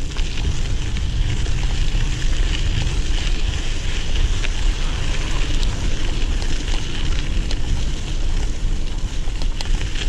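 Mountain bike tyres rolling and crackling over a packed dirt path, under a steady low rumble of wind buffeting the handlebar-mounted action camera's microphone, with occasional small clicks.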